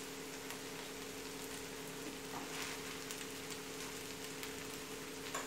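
Low, steady sizzle of toasted erişte noodles cooking in butter in a pan on a low gas flame, the cooking water nearly absorbed, over a faint steady hum.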